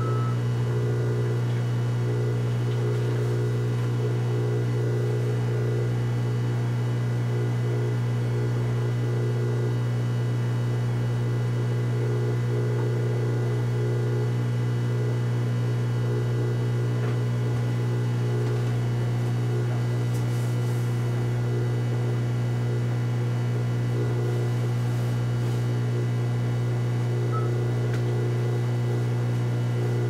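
hOmeLabs compact countertop dishwasher running early in its wash cycle: a steady, loud electric hum with a low buzzing tone. This is the most noise it makes.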